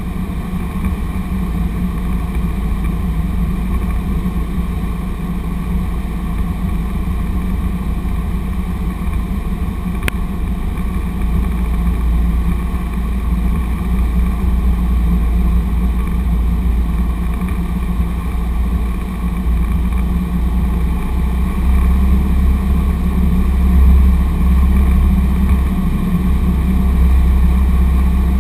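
Cessna 150's four-cylinder Continental O-200 engine and propeller making a steady drone inside the cockpit, with a low rumble that grows stronger in the second half. A single brief click sounds about ten seconds in.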